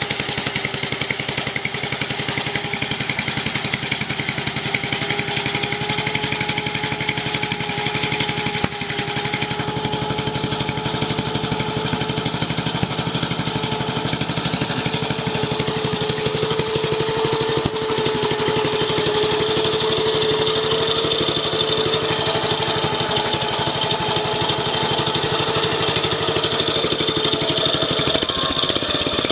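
Howard rotary tiller's single-cylinder air-cooled engine, an Australian-made clone of a Sturmey-Archer dry-sump motorcycle engine, running steadily and picking up speed slightly about halfway through. Its cylinder has been bored and re-ringed but still has the original piston, which leaves about 2 mm of piston slap under the exhaust note.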